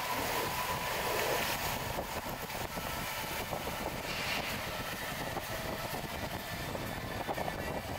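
Motorboat engine running steadily, with a noisy, even sound.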